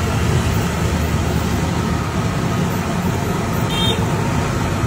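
Steady roadside traffic noise, with a brief high-pitched tone about four seconds in.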